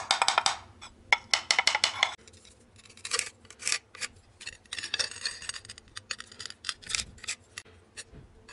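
Hand work on ceramic tile: a quick regular run of scratchy strokes, about seven a second, stops about two seconds in. After it come scattered clicks and scratches as a narrow tile strip is handled and marked out with a pencil.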